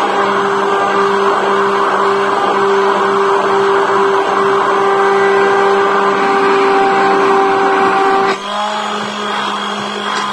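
Old electric immersion blender running steadily in a bowl of instant coffee and hot water, whipping it into a thick foam. About eight seconds in, its hum changes to a lower, quieter note.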